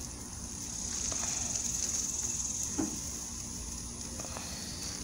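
Raw pork chops and boudin sausage sizzling on a hot charcoal grill grate: a steady high hiss with faint crackles, swelling for a couple of seconds as the sausage links are laid on.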